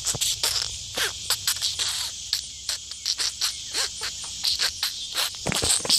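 A steady, high outdoor insect chorus of chirring, with many short clicks and knocks through it, the loudest just before the end.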